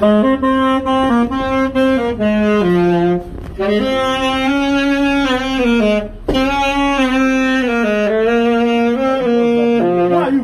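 Saxophone playing a melody of held notes, in phrases broken by short pauses about three and six seconds in.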